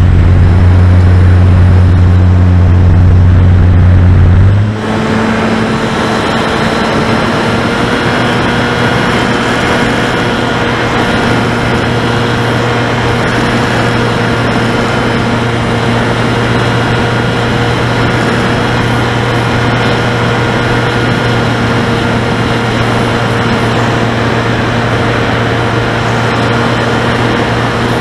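Onboard sound of a Finwing Sabre RC plane in flight: its electric motor and propeller hum steadily over rushing airflow. About five seconds in, the hum steps abruptly to a slightly higher pitch and gets a little quieter, then holds steady, as with a throttle change.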